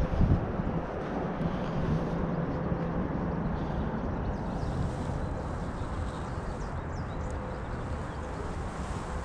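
Steady outdoor background noise with a low hum, and a couple of knocks at the start.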